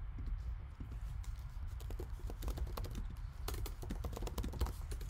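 Typing on a computer keyboard: a run of quick key clicks, sparse at first and then coming thick and fast over the last couple of seconds.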